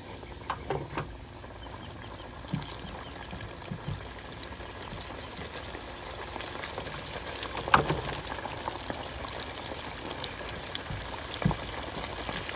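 Hot oil bubbling and sizzling in an electric deep fryer as cornmeal-coated whole sac-a-lait (crappie) fry, growing louder through the stretch. A few light knocks sound over it, the sharpest about two-thirds of the way through.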